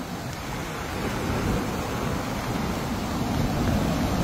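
Floodwater rushing through a washed-out road in a steady, even torrent, growing a little louder over the first second or so.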